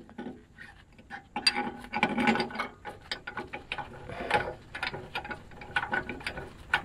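Hand socket ratchet clicking in short, irregular runs as engine mount bolts are tightened.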